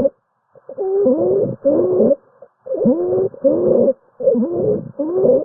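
Stridor: a pitched, wavering breath sound with every breath in and out, three quick breaths in a row. It can be a sign of a narrowed or obstructed upper airway, for example from a foreign body.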